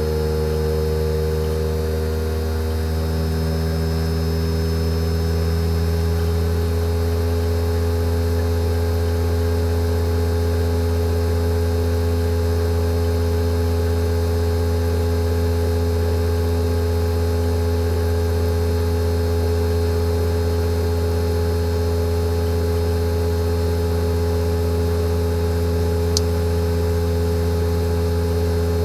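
Fujitsu General AO-C28H air-conditioner outdoor unit's inverter compressor running during a defrost cycle: a steady, loud mechanical hum with several pitched tones, a few of them shifting slightly in the first few seconds before holding steady. One small tick sounds near the end.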